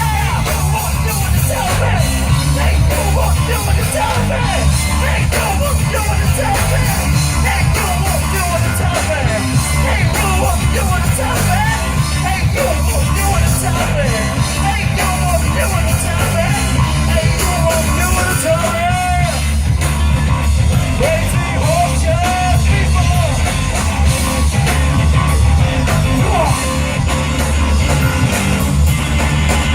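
Live rock band playing loud heavy rock with distorted guitar, bass and drums, over yelled singing.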